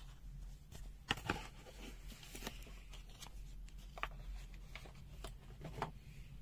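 Faint paper rustling with a few light clicks and taps, as paper and packaging are handled on a table; the sharpest taps come about a second in and again near the end.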